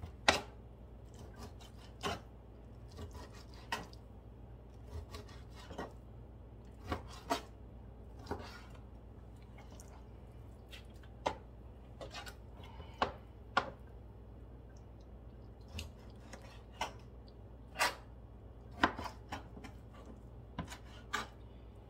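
A knife cutting beef into cubes, the blade knocking on a plastic cutting board in short sharp taps at uneven intervals, over a steady low hum.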